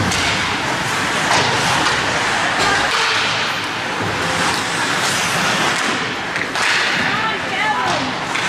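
Ice hockey play heard from the stands: skates scraping on the ice in a steady hiss, with a few sharp knocks of sticks and puck, and voices shouting near the end.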